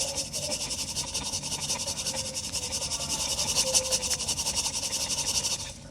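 Dense, fine crackling hiss of pure cement being crumbled by hand, stopping suddenly near the end.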